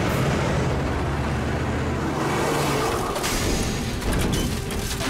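Cartoon sound effect of a heavy fire truck's engine running hard as it drives over rough ground: a steady low rumble, with a few knocks about three to four seconds in, under background music.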